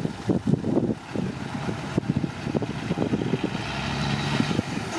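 Dump truck's diesel engine running at idle with its bed raised, an uneven low rumble.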